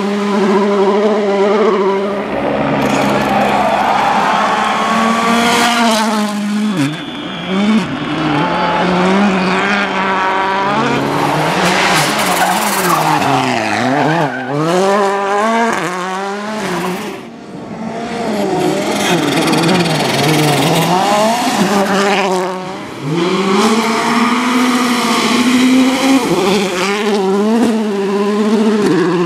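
Volkswagen Polo R WRC rally car's 1.6-litre turbocharged four-cylinder engine at full attack, revving hard and climbing through gear changes, then dropping on lift-off, over and over across several separate passes. The loudness dips briefly three times, about 7, 17 and 23 seconds in.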